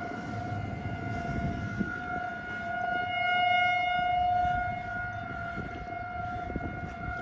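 Outdoor warning siren holding a steady, unwavering tone. It swells louder for a second or so in the middle, then eases back.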